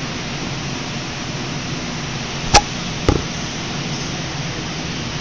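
Steady background noise of kitchen ventilation, broken by two sharp clicks about half a second apart near the middle.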